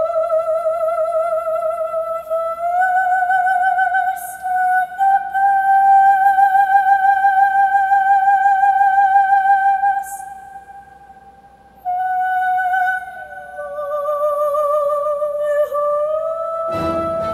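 Recorded soprano voice holding long, high notes with wide vibrato, almost unaccompanied, played back through JL Audio C5-650 component speakers driven by a car-audio head unit's built-in amplifier. A full orchestra with strings comes in loudly near the end.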